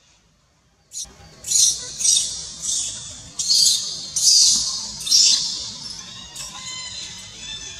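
Infant long-tailed macaque screaming in distress: a rapid string of loud, shrill cries that starts about a second in and goes on, somewhat fainter, toward the end.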